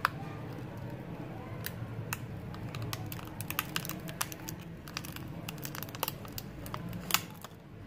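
Scattered sharp clicks and crinkling from the phone's battery and its adhesive being worked loose and lifted out of the Vivo Y93 by hand, over a steady low hum. The loudest click comes about seven seconds in.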